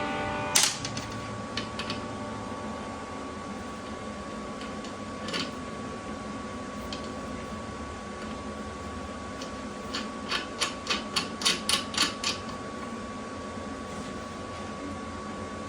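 Sharp light clicks over a steady hum: one loud click just after the start, a few scattered ticks, then a quick run of about eight clicks, roughly four a second, near the end.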